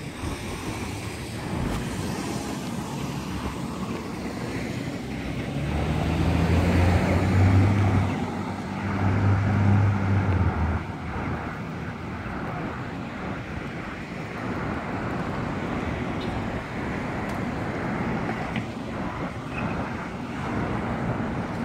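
Street traffic noise with vehicles passing. A low engine drone swells close by for a few seconds near the middle, then fades.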